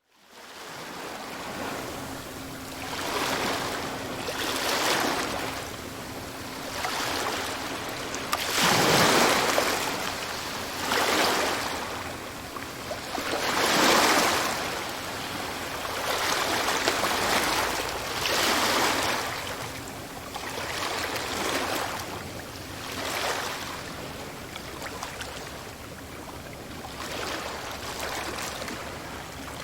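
Ocean waves surging and washing back, one swell of surf every few seconds, the loudest about nine and fourteen seconds in. The sound fades in at the very start.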